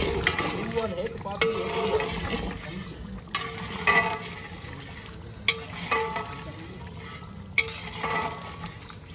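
A long metal ladle stirring thick curry in a large aluminium cooking pot, with a few sharp clinks of the ladle against the pot about two seconds apart.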